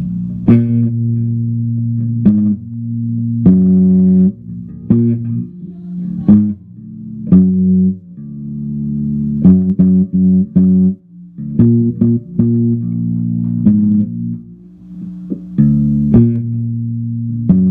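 Electric bass guitar played slowly: single low notes plucked every second or two, each left to ring before the next.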